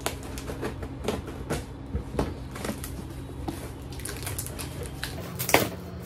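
A cardboard parcel wrapped in packing tape being cut and torn open by hand: irregular scrapes, crinkles and clicks, with one louder snap about five and a half seconds in, over a steady low hum.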